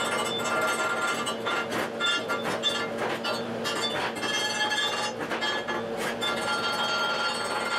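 Chipping hammer striking the welded corners of a quarter-inch steel plate box, knocking slag off 7018 stick welds: rapid, irregular taps, the plate ringing after each, over a steady low hum.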